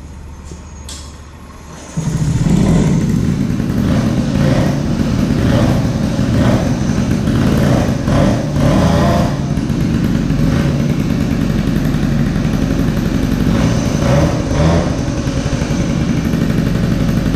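A Peugeot moped's small two-stroke engine starts up about two seconds in and keeps running, rising and falling a little. It starts and runs properly on its correctly assembled stock variator.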